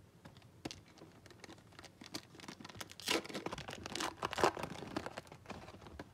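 Trading cards and their pack wrapper being handled: crinkling, rustling and light clicks, with louder crinkling bursts about three and four seconds in.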